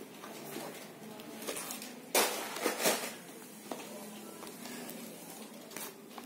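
Handmade card explosion box being opened: paper and card panels rustle and flop onto a tabletop, with three sharp slaps close together about two seconds in, then lighter paper handling.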